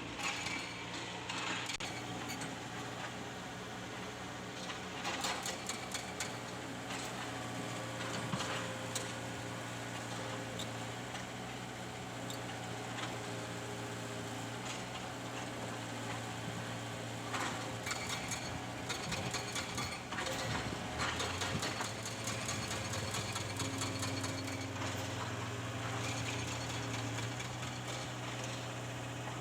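An excavator's engine running steadily, with irregular metallic clanks and knocks over it.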